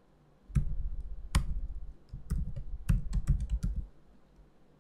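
Typing on a computer keyboard: a quick, uneven run of key clicks that starts about half a second in and stops near the end.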